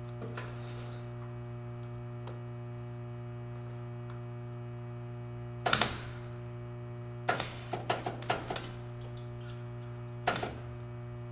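Short MIG welding tacks crackling on the car's sheet-metal strut tower: one burst about halfway, a quick run of several short tacks a couple of seconds later, and another near the end. They are spaced out as stitch welds to keep the panel from warping, over a steady electrical hum.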